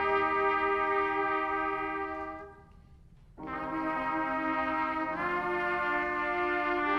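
Brass instruments holding long sustained chords, cutting off for about a second in the middle, then coming back in, with the chord shifting about five seconds in.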